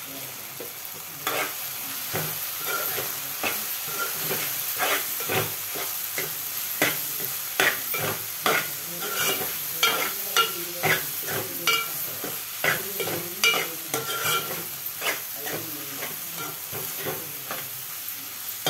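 A metal spoon stirs chopped beans frying in a metal pot. The oil sizzles steadily, and from about a second in the spoon scrapes and clinks against the pot roughly once or twice a second, some strokes ringing briefly.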